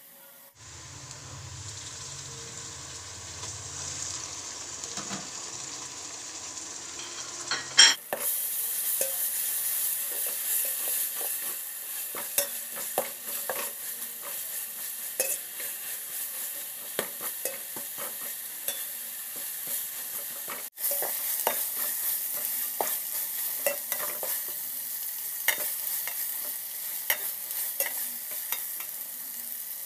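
Sliced onions frying in hot oil in an aluminium pot, a steady sizzle, with a metal spatula stirring and scraping against the pot again and again. There is a sharp click about eight seconds in, after which the sizzle is louder.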